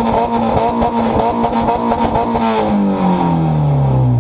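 Car engine revved hard and held on a two-step launch-control rev limiter: a steady held note with rapid crackling pops. About two and a half seconds in, the revs drop away.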